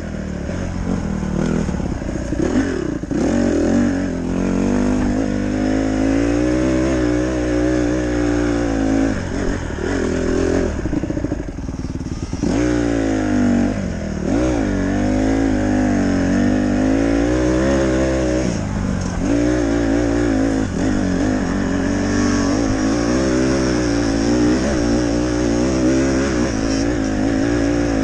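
Honda CRF150R dirt bike's single-cylinder four-stroke engine running under load while ridden, its revs rising and falling over and over with the throttle, with a few sharp drops in revs around the middle.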